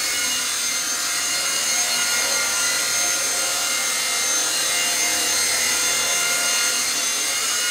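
Eachine E130 micro RC helicopter flying: its electric motor and spinning rotor make a steady, high whine with several held tones.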